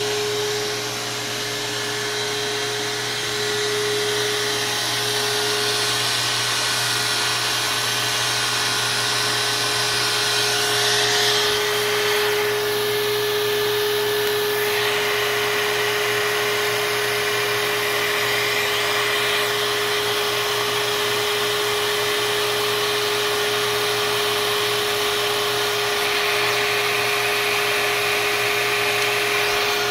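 Bench milling machine running with a steady whine over a constant hiss.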